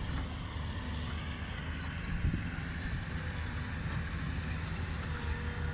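A steady low engine rumble, with a brief knock about two seconds in.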